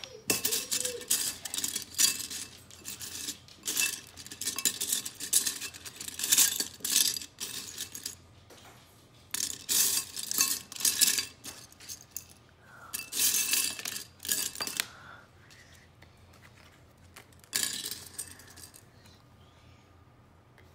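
Loose plastic Lego pieces clattering and clinking against a ceramic bowl as a hand rummages through them, in repeated bursts, with a last short burst a few seconds before the end.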